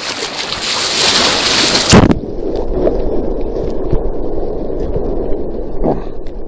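Rushing, splashing river rapids. About two seconds in, the sound turns suddenly muffled and dull, a low churning rumble, as heard by a waterproof camera that has gone under the water.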